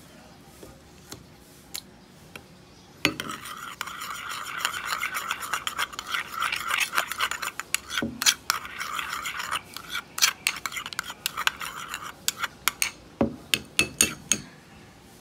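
Metal spoon stirring and scraping against a ceramic bowl as it mixes a thick mayonnaise-and-ketchup sauce. The stirring starts about three seconds in as steady scraping and ends with a run of sharp clicks of spoon on bowl.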